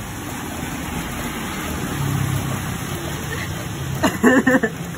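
Steady hiss of rain with a low rumble that swells about two seconds in, and a short burst of a voice about four seconds in.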